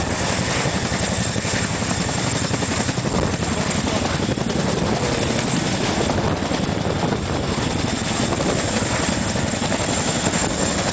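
Boeing CH-47 Chinook tandem-rotor helicopter running close by, its rotors beating in a rapid steady pulse over the steady noise of its engines.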